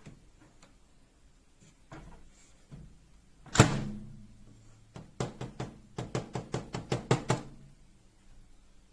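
A microwave oven door shutting with a single sharp thud that rings briefly, followed a little later by a quick run of about a dozen clicks.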